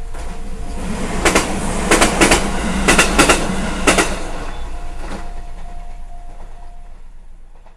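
A train passing slowly over a level crossing: a low rumble that builds and then fades away, with about six sharp wheel clacks over rail joints, some in close pairs, between one and four seconds in. A level-crossing alarm rings steadily under it, heard at the start and again after the clacks.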